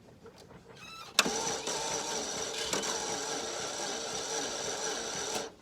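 Attempt to start a 2003 Pontiac Sunfire with a 2.2 L Ecotec engine on a jump starter. About a second in, a loud, steady whirring buzz from the starter cuts in, holds for about four seconds without any firing, and stops abruptly. The engine does not start.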